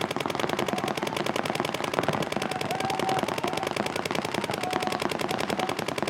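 Paintball markers firing in long, fast streams: a dense, even rattle of shots that goes on without a break.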